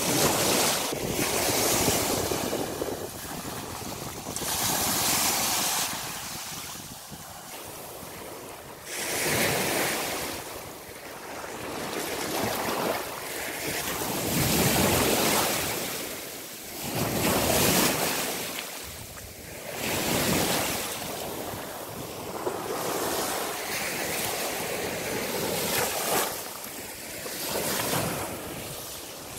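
Small waves washing up a shelly sand beach, each wash swelling and falling away every few seconds.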